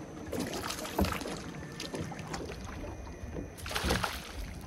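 Water splashing and slapping around a small fishing boat, with irregular knocks and clicks and a louder burst of splashing about four seconds in.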